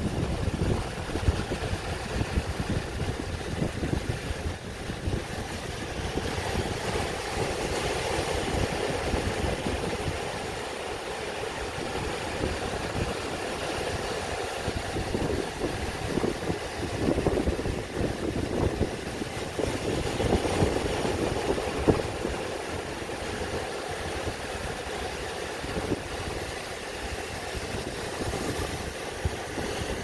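Ocean surf breaking and washing around shoreline rocks: a continuous rushing noise with a heavy low rumble, swelling each time a wave comes in and foams over the rocks.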